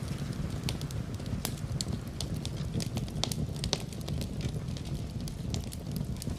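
Wood fire crackling in a fireplace: many quick sharp pops and snaps over a steady low rumble.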